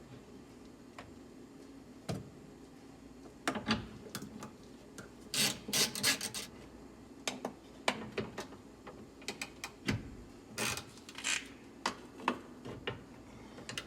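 Hands working on car door parts: scattered clicks and taps with short scraping and rubbing sounds, more frequent from about five seconds in.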